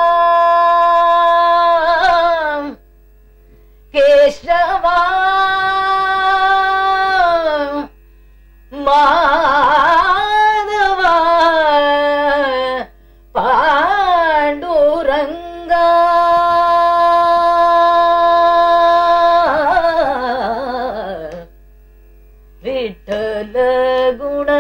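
A woman singing a Marathi abhang in Carnatic style with no percussion: long held notes with sliding, wavering ornaments, sung in phrases with short breaks. A faint steady drone carries on beneath the pauses.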